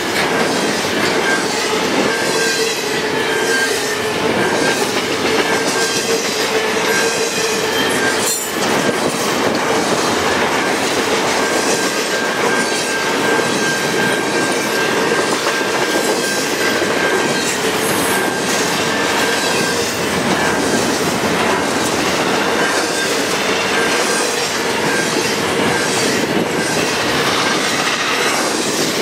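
Double-stack container well cars of a freight train rolling past at close range, making a steady noise of steel wheels on rail. A thin wheel squeal comes and goes over it.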